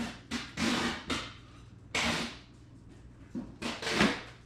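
Packaged merchandise being pulled from a box and handled: several short bursts of rustling and scraping, the loudest about four seconds in.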